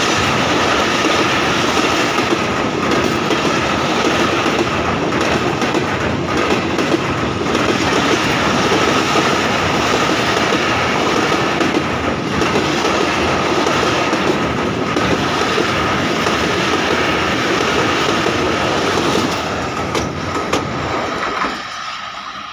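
Pakistan Railways passenger coaches running past close by: a loud, steady rumble and clatter of steel wheels over the rail joints, with a steady high-pitched ring over it. The noise dies down near the end as the train goes by.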